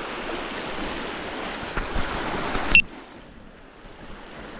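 Steady rush of river water, which breaks off sharply with a click nearly three seconds in and goes on more quietly.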